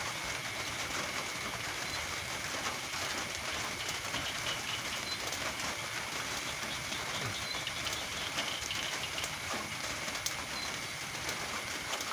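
Steady rain falling, an even hiss, with a thin high steady tone running beneath it and a few faint clicks.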